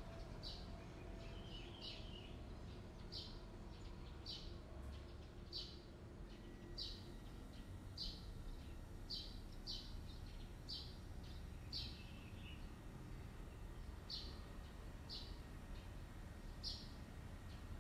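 A small bird chirping faintly in the background, short high chirps repeated roughly once a second, over a low steady hum.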